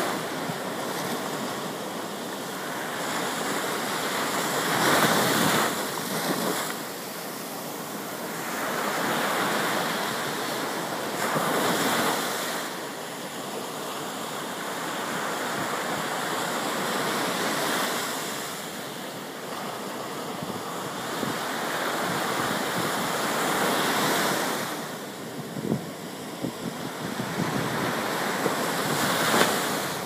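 Ocean surf breaking and washing up a sandy beach. The rush of water swells and fades every few seconds as each wave comes in and draws back.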